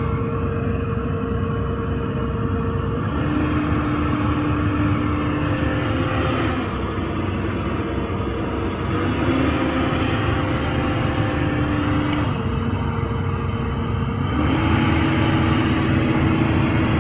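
Caterpillar 320D excavator running: a steady diesel rumble with a hydraulic whine that steps up and down between a few pitches every few seconds.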